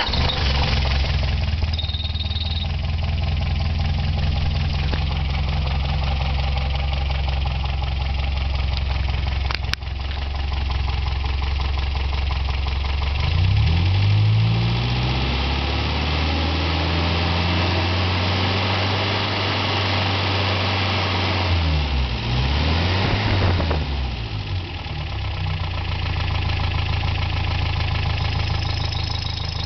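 MGA 1500's B-series four-cylinder engine with twin SU carburettors idling steadily. About halfway through, it is revved up from the throttle linkage and held at a faster speed. Around three-quarters of the way through, the revs dip and rise quickly before it settles back to idle.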